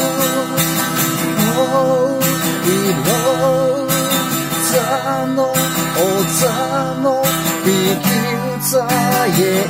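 A man singing, accompanying himself on a strummed acoustic guitar.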